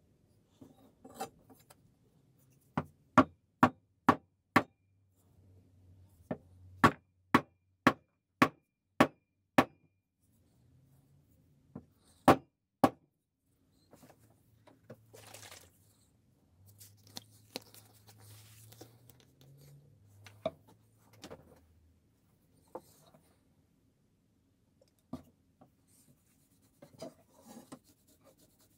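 Hammer blows driving a new wooden handle onto a billhook's tang: about fourteen sharp knocks in three quick runs, roughly two a second, then quieter handling and rubbing noises.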